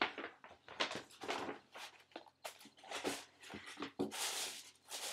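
Rustling as gifts are handled and moved about: a quick, uneven series of rustles and soft crinkles.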